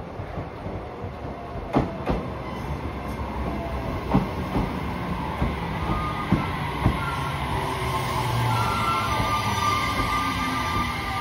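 JR Kyushu electric commuter train running past close by, its wheels clicking sharply over rail joints a few times. A rising rumble and a whine settle in, and near the end the whine falls in pitch.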